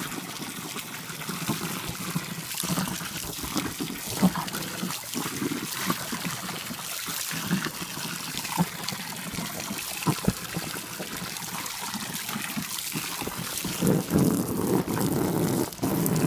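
Garden hose spraying a steady stream of water into an inflatable paddling pool, with a small dog splashing as it wades through the water. A louder stretch comes near the end.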